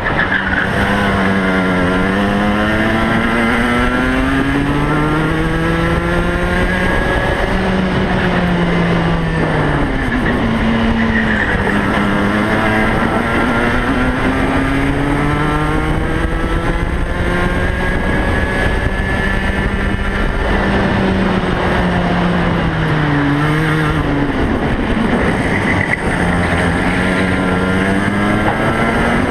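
Racing kart's Rotax Max 125cc two-stroke engine at race pace, heard onboard. Its pitch climbs steadily for several seconds, drops quickly about a third of the way in and again about two-thirds in, then climbs once more.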